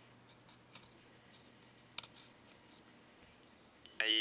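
Quiet, with a few faint clicks. Just before the end, the Plant Whisperer's text-to-speech voice, synthesized in real time on a Parallax Propeller microcontroller, starts suddenly from the board's small speaker. The voice is rough and buzzy.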